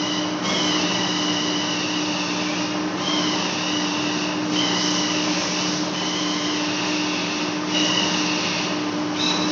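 Large lathe facing a metal flange: a steady machine hum and hiss, with a high wavering squeal from the cutting tool on the turning face that breaks off and starts again about every one and a half seconds.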